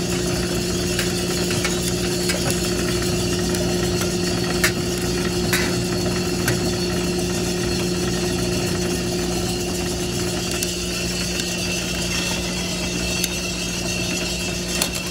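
Drum sample roaster running with a steady motor and fan hum. A few sharp, scattered pops break through it a second or more apart: coffee beans just entering a slow first crack.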